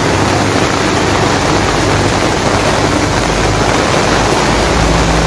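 Heavy rain pouring down, a loud steady rush drumming on the umbrellas and plastic sheeting overhead, with a low steady hum underneath.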